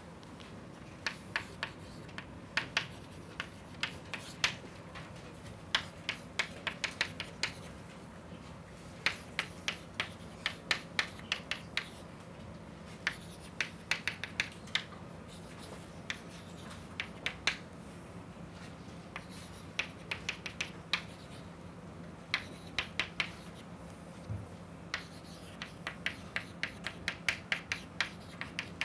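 Chalk writing on a blackboard: clusters of quick, sharp taps and scratches as each symbol is struck, with short pauses between groups, over a faint steady hum.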